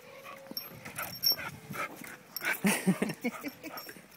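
Golden retriever puppy making short dog sounds, the loudest a brief burst about two and a half seconds in, amid scattered light clicks and scuffs.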